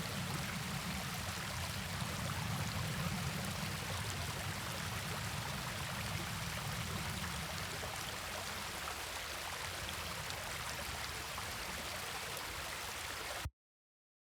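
River water flowing, a steady rushing. A low rumble underneath weakens about halfway through, and the recording cuts off abruptly near the end.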